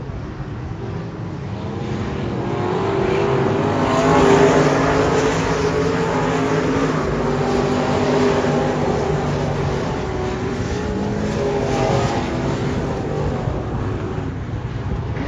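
A field of dirt-track race cars racing at full throttle. The engines swell as the pack comes past, loudest about four seconds in, and then keep running loud as they go on around the track.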